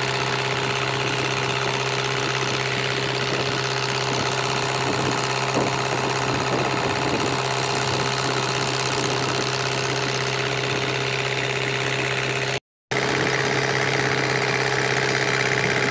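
Riverboat engine running steadily under way, a constant drone with a steady hum. The sound cuts out for a moment about three-quarters through.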